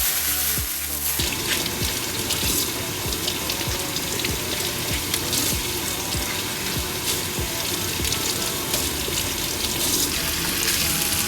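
Water running from a tap, starting about a second in, under background music with a steady beat.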